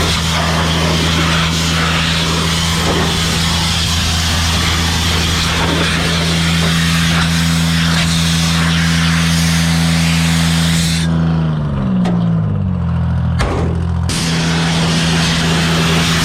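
Engine running steadily under a loud hiss of compressed air blowing out equipment. The air cuts off about eleven seconds in, the engine's pitch dips briefly, and the hiss starts again about three seconds later.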